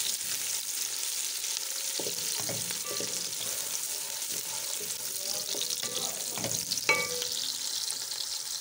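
Sliced onions sizzling in hot oil in an aluminium pot, lightly frying, stirred with a wooden spatula. A steady high sizzle, with a few knocks of the spatula against the pot, the sharpest near the end.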